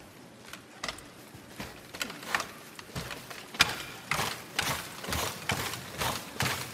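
Hooves of a life-size horse puppet striking the stage floor as puppeteers walk it. Scattered knocks at first, then from about halfway through a louder, steady clip-clop of roughly three hoofbeats a second.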